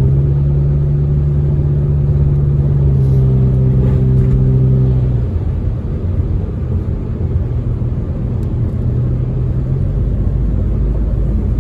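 Car driving on a rain-wet road, heard from inside the cabin: a steady low engine and road rumble. A steady engine drone over it drops away about five seconds in, leaving the rumble.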